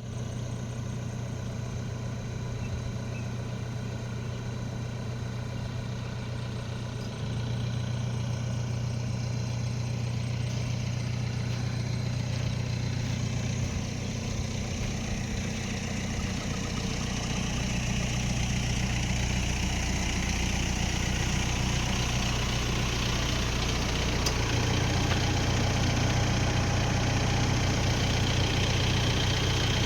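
A motor vehicle's engine running steadily as a low hum, stepping up a little in level a few times.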